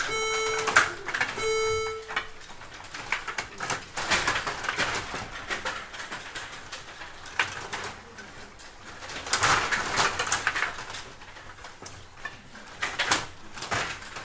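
Stiga rod table hockey game in play: the rods slide and spin, the plastic players clatter and the puck clicks against sticks and boards in quick, irregular knocks with louder flurries. Near the start, two electronic beeps about half a second long sound roughly a second apart.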